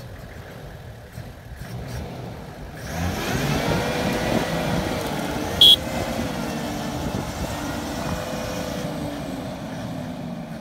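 Toyota Land Cruiser's engine revving hard under load as the bogged-down 4x4 tries to drive out of deep mud, building up about three seconds in, holding with a slightly wavering pitch, then easing off near the end. A single brief sharp knock is heard near the middle.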